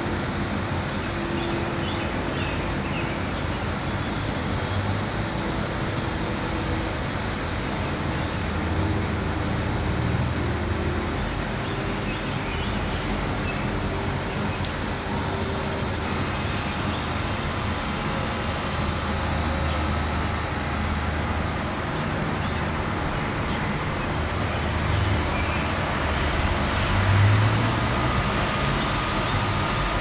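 Steady outdoor background noise with a low rumble of distant road traffic that swells and fades a few times.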